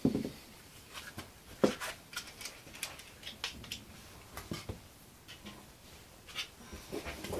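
Irregular sharp clicks and knocks of small hand tools and balsa parts being handled on a workbench, with the two loudest knocks about a tenth of a second and a second and a half in.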